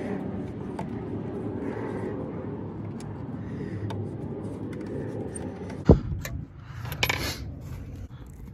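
A small metal hex key set down sharply on a wooden desk about six seconds in, a single knock that is the loudest sound, after a steady low background rumble. A brief rustle follows about a second later.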